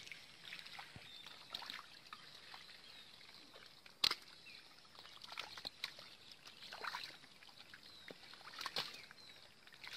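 Hands squelching and sloshing through wet pond mud, with scattered small wet slaps and splashes. A single sharp knock about four seconds in is the loudest sound.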